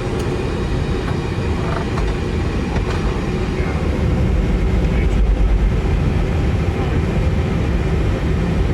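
Steady low rumble of an Airbus A320neo airliner heard on the flight deck, growing a little louder about halfway through.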